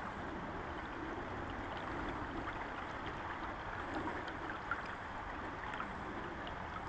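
Shallow river running over a rocky bed: a steady rush of flowing water.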